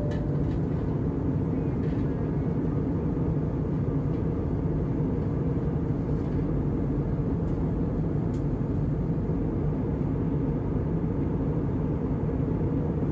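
Steady cabin noise of a jet airliner in flight: the engines and the rush of air heard from inside the cabin as an even, low-pitched drone that does not change.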